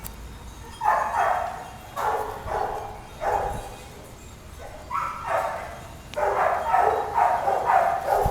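A dog barking repeatedly in short pairs and runs, with pauses of about a second between them and a quick run of barks near the end.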